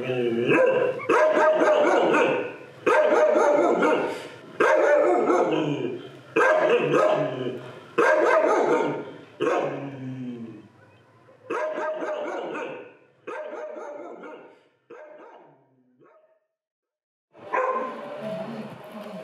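A dog barking over and over in long, drawn-out barks that fall in pitch, roughly one every one and a half to two seconds. The barks grow weaker, break off for about a second near the end, then start again.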